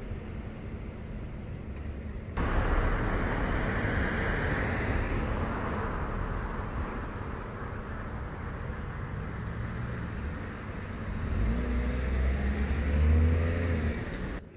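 Steady road-traffic rush that turns suddenly louder a couple of seconds in, then a car engine rising in pitch as it passes near the end.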